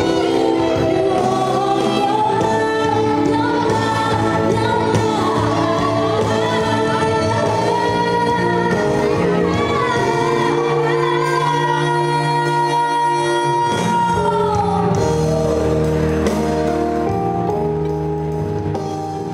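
A live band (saxophone, electric bass, drums and keyboard) playing a pop song with singers, the female vocal leading. In the middle a long held sung note ends with a downward slide, and near the end the sound starts to fade.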